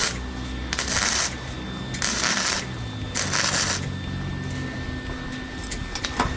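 Wire-feed welder laying short stitch welds on the thin sheet steel of a 1963 VW Beetle decklid: three brief bursts of arc, each about half a second, roughly a second apart, then the welding stops about four seconds in. Welding a little at a time like this keeps the thin panel from burning through.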